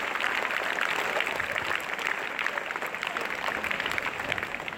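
Audience applauding, many hands clapping, the applause slowly thinning out.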